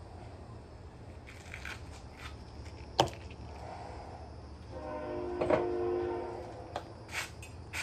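Kitchen items being handled and set down on a counter: a sharp knock about three seconds in and a few lighter clicks near the end. Midway comes a tone of several pitches sounding together, held for about a second and a half.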